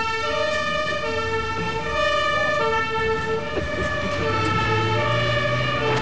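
Fire engine's two-tone siren, switching back and forth between a lower and a higher note every half second or so.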